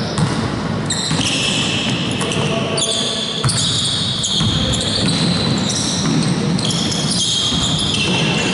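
Indoor basketball game: the ball bouncing on a hardwood court and sneakers squeaking in short high-pitched chirps, in a large echoing sports hall.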